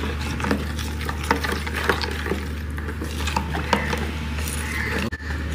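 A utensil stirring spices into beaten yogurt in a bowl, with irregular light scrapes and clicks against the bowl.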